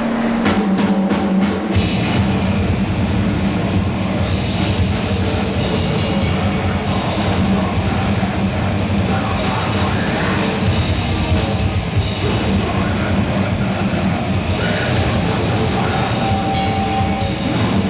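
Live rock band (drum kit, electric guitars and bass) playing loudly: a few sharp drum hits open, and the full band comes in about two seconds in and plays on steadily.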